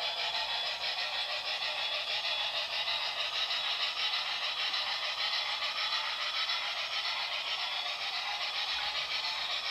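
O gauge three-rail model train of passenger cars running on garden track: a steady rattle of wheels on the rails.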